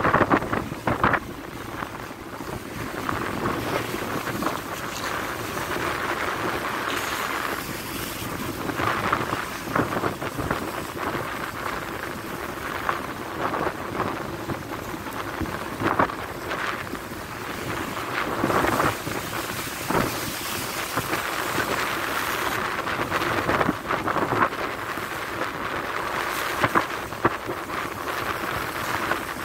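Rough sea rushing and breaking along the hull of a cargo ship under way, with strong wind buffeting the microphone. Now and then a wave slaps against the side, louder than the steady rush.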